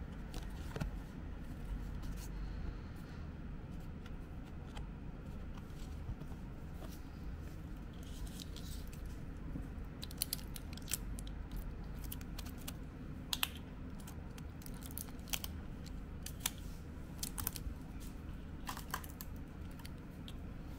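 Light clicks and taps of small plastic toy medals being picked up, turned over and set down by hand, coming thicker from about eight seconds in, over a low steady room hum.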